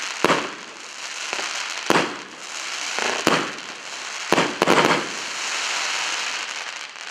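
A 25-shot firework cake firing gold palm-tree bursts: about seven sharp bangs at uneven intervals, several in quick succession around the middle, over a steady crackling hiss of burning stars. The hiss fades out near the end as the cake finishes.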